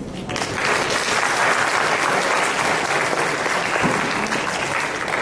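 Audience clapping in steady applause, beginning a moment in and starting to die away near the end.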